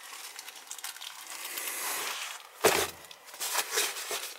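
Rustling and crinkling of parts being handled and rummaged through, with one sharp knock about two and a half seconds in and a few lighter clicks after it.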